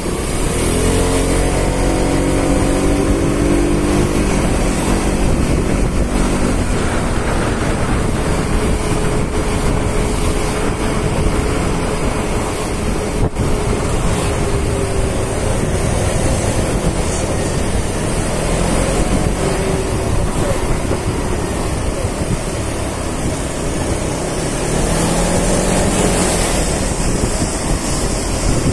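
Small scooter engine running under the rider, with wind and road noise. The engine note climbs as the scooter accelerates about a second in and again near the end, and holds steady in between.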